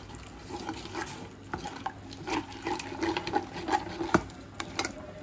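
A hand mixing thick, wet flour-and-spice batter in a steel plate: squelching and scraping, with irregular sharp clicks, the sharpest a little after four seconds in.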